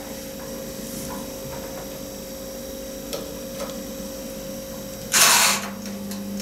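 Countertop electric mini oven being set: faint clicks as its timer knob is turned, then a short rush of noise about five seconds in, after which the oven runs with a steady low hum.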